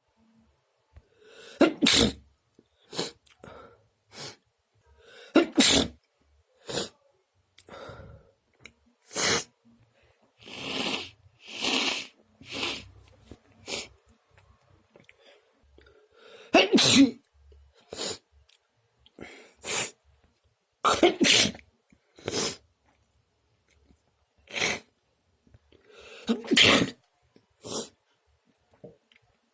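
A person sneezing again and again: about two dozen short, sharp sneezes of varied loudness, spaced a second or so apart.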